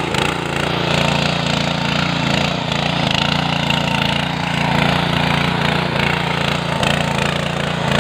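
Walk-behind power tiller's small air-cooled petrol engine running steadily while its rotary tines till wet, muddy soil.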